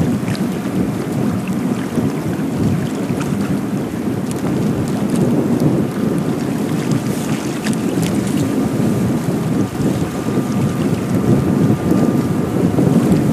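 Strong wind buffeting the microphone as a steady, gusting low rumble, with waves washing against the rocks of the breakwater underneath.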